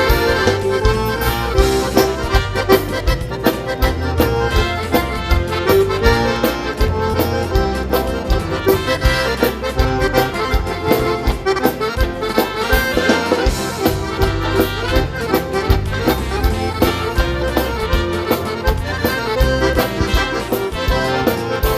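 Instrumental passage of a gaúcho dance song led by piano accordion, over a steady bass and drum beat.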